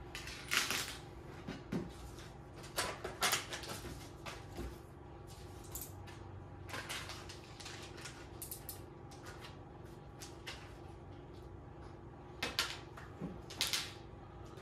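Small hardware parts and their packaging being handled and set down on a workbench: scattered light clicks and short rustles at irregular intervals.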